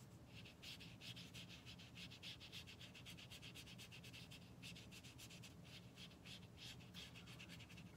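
A dog panting quickly and evenly, faint.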